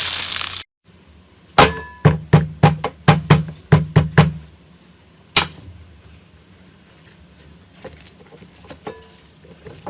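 A brief burst of crunching noise cuts off. After a short gap comes a quick run of about nine sharp taps, each with a low thud, over nearly three seconds. One more tap follows about a second later, then faint small clicks.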